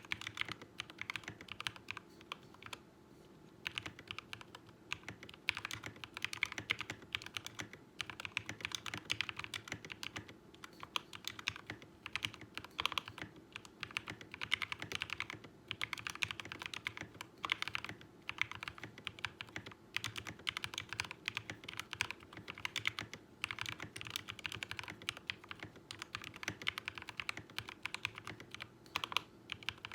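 Mechanical keyboard with lubed Mauve linear switches, PBT keycaps and an aluminium plate in a wooden case, typed on steadily in fast runs of keystrokes broken by a few short pauses.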